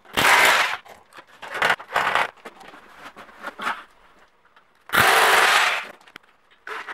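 Corded power drill running in two short bursts of about a second each, one just after the start and one about five seconds in, drilling holes to fix metal drywall tracks. Shorter, quieter knocks and scrapes come between.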